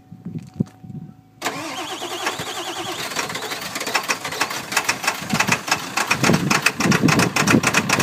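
1995 Ford F-250's 7.3-litre Power Stroke turbo diesel V8 cranking on starting fluid, kicking in suddenly about a second and a half in, with firing strokes coming in and growing louder as it begins to catch. This is a hard cold start: the glow plugs are not heating because of a failed glow plug relay.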